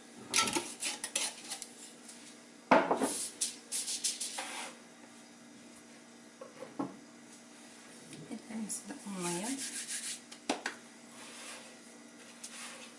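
Sesame seeds pouring from a glass jar onto parchment paper, then a knock and repeated scraping and rubbing as a metal bench scraper and hands push a ball of bread dough across a wooden board to round it, with a brief squeak near the end.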